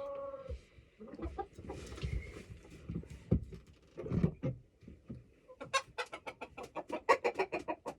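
Chickens clucking in a coop: a long drawn call trails off about half a second in, then a few knocks and rustles, and near the end a fast run of clucks.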